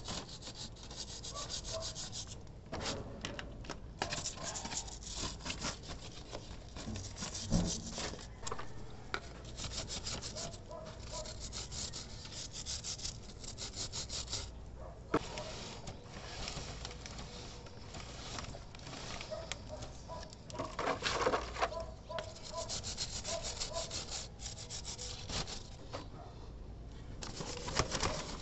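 Stiff brush scrubbing a greasy motorcycle drive chain and its rear sprocket in runs of quick back-and-forth strokes, with short pauses between runs.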